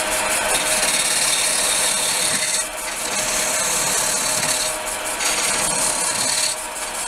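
Small wood lathe spinning an ash bowl blank while a narrow 8 mm cutter ground from a drill bit cuts into its face: a steady hissing scrape of wood being turned over the lathe's steady hum. The cut eases off briefly about three times.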